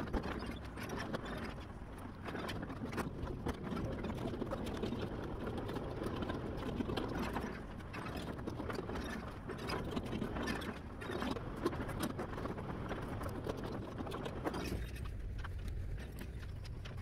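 John Deere tracked excavator running while its bucket and thumb crush and drag mobile-home demolition debris: a steady engine drone under continual cracking and crunching. About fifteen seconds in the crunching stops, leaving a lower machine drone.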